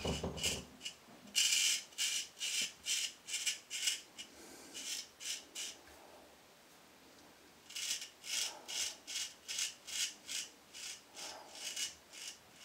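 Dovo Black Star 5/8 straight razor scraping stubble through shaving lather in short, even strokes, about two a second. The strokes stop for about two seconds midway, then start again.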